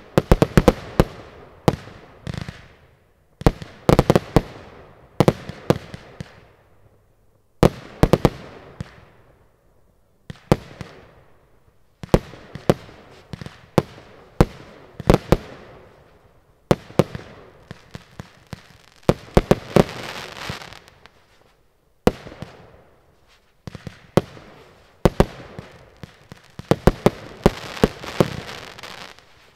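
Zena Mayhem consumer firework cake firing: sharp shots launching and bursting overhead in quick clusters every second or two, each cluster trailing off. Dense crackle comes about twenty seconds in and again near the end.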